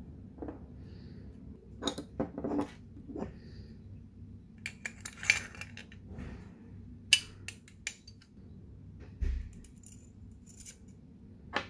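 Scattered clicks and clinks of the small metal and plastic parts of a Colt 1911 CO2 BB pistol being handled and fitted together during reassembly: the slide turned in the hands, a screwdriver put down, the recoil spring fitted over the barrel. The sharpest click comes about seven seconds in, and a dull knock a little after nine seconds.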